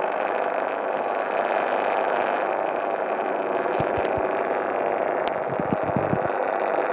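Shortwave signal on 15420 kHz from a Radiwow R-108 DSP receiver's speaker: a steady, distorted noise with no speech or music in it, in place of the scheduled broadcast, which the owner cannot identify.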